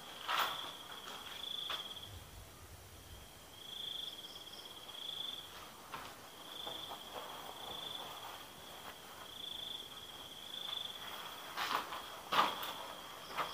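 A cricket trilling steadily at a high pitch, in phrases of about a second with short breaks. A few soft knocks and rustles come near the start, and two louder knocks near the end.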